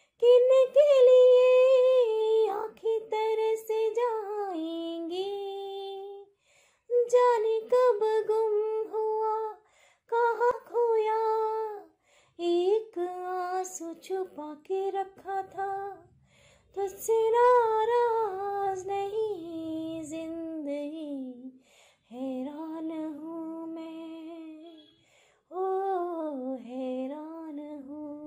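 A woman singing solo with no accompaniment: a slow song in long held phrases, many sliding down at their ends, with short breaths between them.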